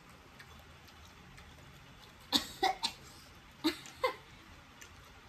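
A woman coughing in two short fits, three coughs then two, as the chili heat of spicy instant noodles catches her throat.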